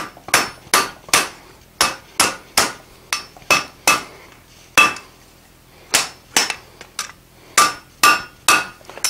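Hand hammer striking a red-hot flat steel bar on an anvil: about seventeen sharp blows in uneven groups, each with a short metallic ring, with a pause of a second or two near the middle. The bar is being forged into a dog-leg offset bend.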